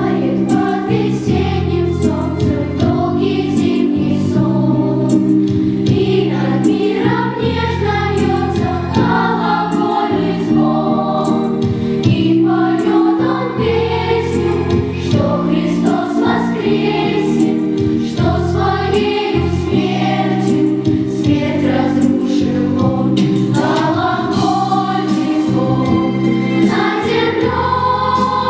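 Church choir singing sustained chords.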